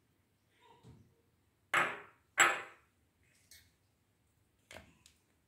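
Two sharp knocks on a tabletop about half a second apart, hard objects being handled and set down, with a few faint plastic clicks around them as an ice-pop mould is filled and handled.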